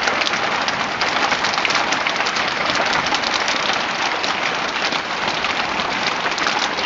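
Hailstorm: a dense, steady clatter of countless hailstones striking surfaces, mixed with heavy falling rain.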